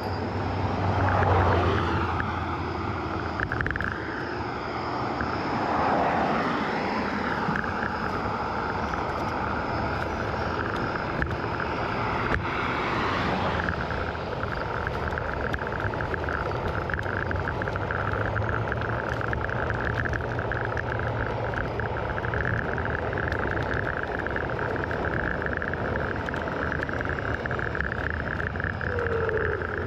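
Small motor scooter running steadily at about 15 mph, its motor whine held at a constant pitch, with wind rush on the microphone. A few louder swells pass in the first half.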